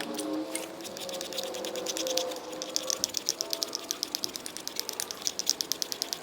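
A Work Sharp knife sharpener's mechanism giving a run of sharp, even clicks, about six a second, starting about two and a half seconds in, as the blade is worked on the sharpener.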